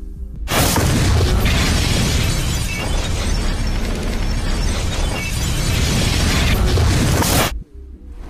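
Loud explosion blowing out a building's windows, with flying debris. It starts abruptly about half a second in, holds as a dense, steady blast for about seven seconds, and cuts off suddenly.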